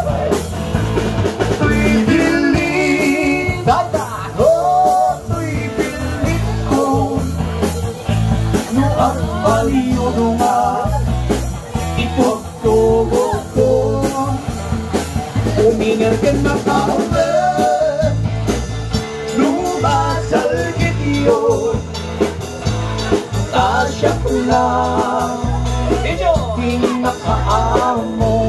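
A live band plays an upbeat dance song: electric guitar over bass and a steady drum beat, with singing at times.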